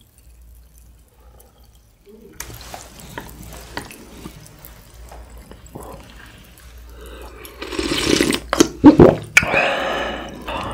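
A wooden spoon clicking and scooping in a glass dish of galbitang broth, with the broth dripping and splashing. About eight seconds in comes a loud slurp of the hot broth from the spoon, the loudest sound.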